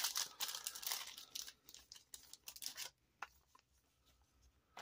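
Thin plastic crinkling and rustling as trading cards and a clear plastic card sleeve are handled, for about the first three seconds, then a few faint ticks.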